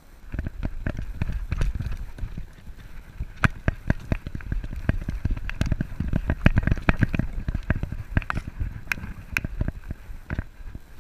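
A running dog's footfalls and body jolts picked up by a camera strapped to its back: rapid, irregular thumps and knocks with sharp clicks mixed in. They ease off near the end.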